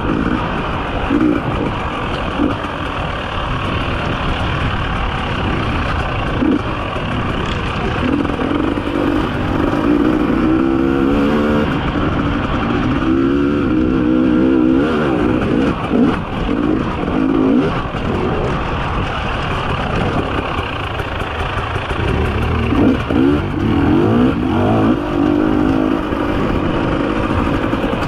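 300 cc two-stroke enduro motorcycle engine running under the rider, its revs rising and falling continually as it rides a rough dirt trail.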